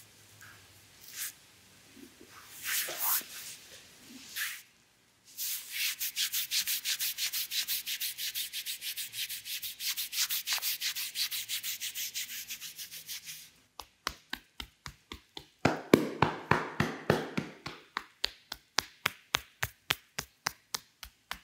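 Hands massaging, with a few faint scuffs, then fast, even rubbing strokes at about five a second. About two-thirds of the way through, these change to a run of quick, sharp percussive hand strikes at a similar pace.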